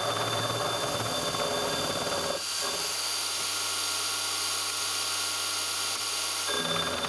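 Milling machine spindle running with a gear-cutting form cutter cutting teeth into a gear blank: a steady machine whine over a hiss. Its low hum changes about two and a half seconds in and changes back near the end.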